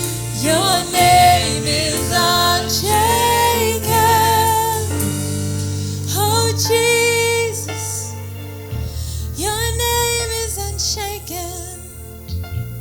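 Gospel worship music: a singer's melody with long, wavering held notes over a steady low accompaniment.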